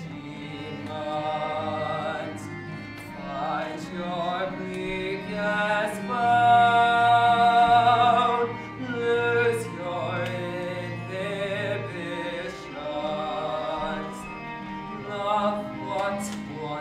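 A man singing a slow, operatic stage-musical solo with vibrato on held notes, over instrumental accompaniment. The loudest, longest-held note comes about six to eight seconds in.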